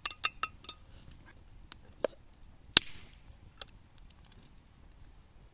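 Serving spoon tapping and scraping against a steel pot as cooked rice is dished out: a quick run of ringing metallic taps at the start, then a few single sharp knocks, the loudest about three seconds in.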